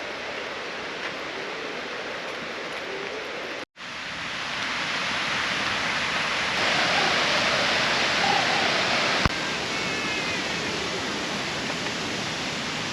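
Big Millstream Falls waterfall rushing: a steady, loud hiss of falling water. The sound cuts out for an instant a little under four seconds in and comes back louder.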